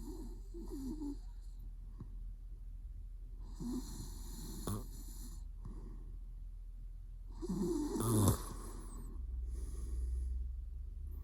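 A sleeping man snoring, three snores about four seconds apart, the last one about eight seconds in the loudest.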